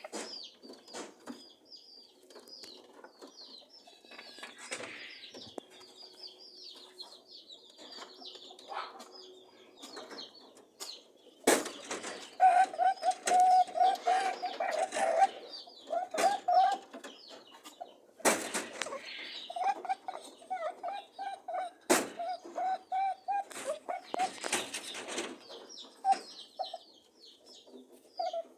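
Rabbits honking during courtship and mating: runs of short, quick pitched honks that start about a third of the way in and keep coming in bursts. Three sharp knocks fall among them. Faint high chirping comes before the honking.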